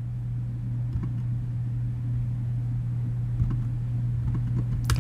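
Steady low electrical hum with faint rumble, and a single sharp mouse click near the end.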